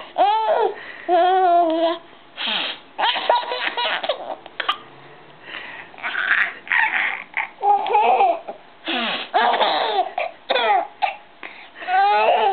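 A baby's hysterical belly laughs in repeated short, high, wavering bursts, set off by a man's sniffles, heard as short breathy noises between the laughs.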